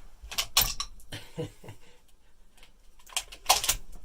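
Shotgun being unloaded to make it safe: sharp clicks and clacks as the action is worked. A cluster comes about half a second in, and the loudest clatter comes about three seconds in.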